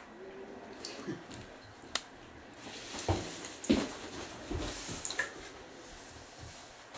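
A baby muskrat scrabbling on the bottom of a bathtub: scattered clicks, then a couple of louder knocks about three seconds in, with scratchy rustling as it scurries across the tub's hard surface.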